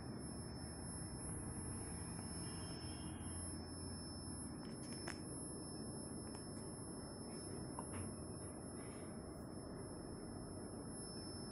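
Steady high-pitched electronic whine, with a fainter second tone an octave above it, from the running home-built CRT oscilloscope, over a low steady hiss. A couple of faint clicks about five and eight seconds in.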